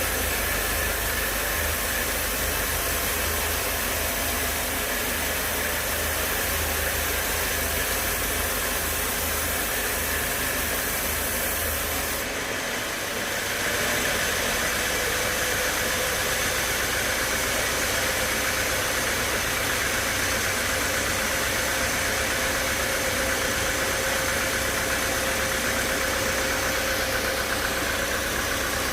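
Sawmill machinery running steadily, with an abrupt change in its tone about twelve seconds in.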